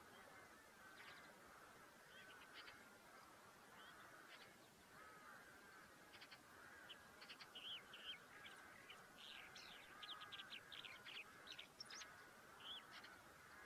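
Faint calls of many distant birds: a steady chatter, with short, higher calls that come thicker in the second half.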